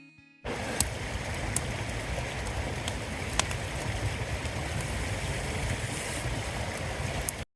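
Wood campfire burning in a stainless fire pit: a steady low rumbling hiss with a handful of sharp crackling pops. It cuts off abruptly near the end.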